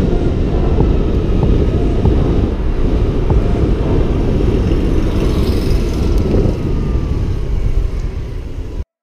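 A derestricted 50cc Yamaha Aerox scooter's two-stroke engine running at speed under heavy wind rumble on a helmet-mounted microphone. The sound drops a little over the last couple of seconds, then cuts off abruptly just before the end.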